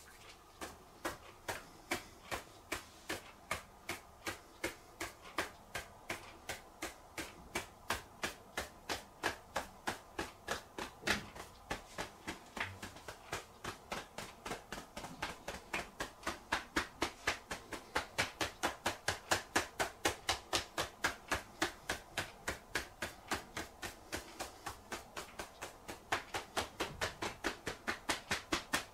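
Fingertips tapping rapidly on the scalp in a self-massage: a steady run of sharp taps, about three to four a second, getting louder a little past the middle.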